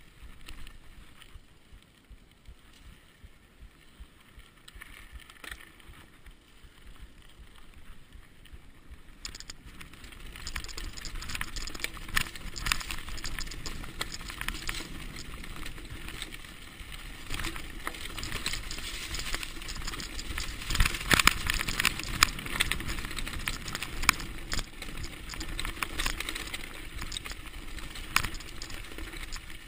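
Mountain bike rolling down a dirt trail: quiet at first, then from about ten seconds in a dense, continuous rattle and clatter of tyres, chain and frame over a rough, fast descent, with many sharp knocks.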